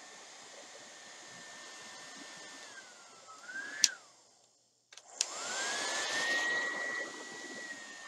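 Tescom TD121-K hair dryer running: a steady high motor whine over rushing air. A little after three seconds in the pitch sags, a switch clicks and the motor winds down to silence. About a second later a second click starts it again, and the whine rises back to full speed with the air rush at its loudest for a couple of seconds.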